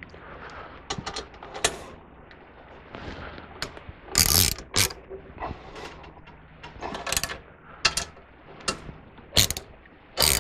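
Ratchet wrench working bolts on a steel bracket, irregular clicking with a few louder metallic knocks about four seconds in and near the end.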